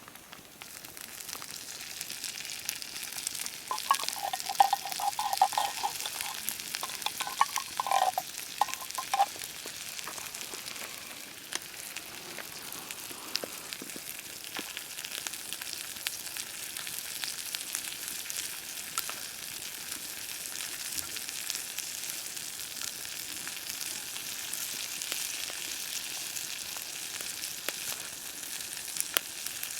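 Food frying in a pan, a steady sizzle with fine spitting crackles, with stirring. Between about 4 and 9 seconds in, a squeaky scraping sound rises over the sizzle.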